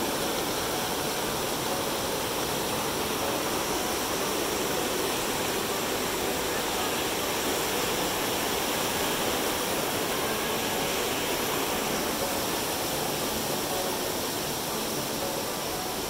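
Mountain stream rushing over boulders and small cascades: a steady, even rushing of water that eases slightly near the end.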